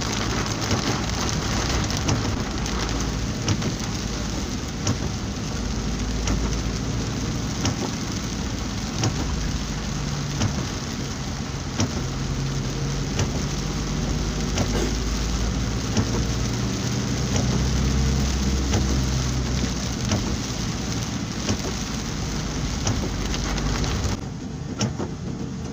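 Heavy rain on a moving vehicle's windshield and body: a dense, steady hiss full of fine drop ticks, with the vehicle's engine and road noise humming low beneath. The rain hiss drops off suddenly near the end.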